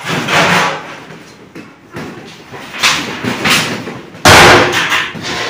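Knocks and thumps from large metal cooking pots and utensils being moved and set down, with the loudest thud about four seconds in.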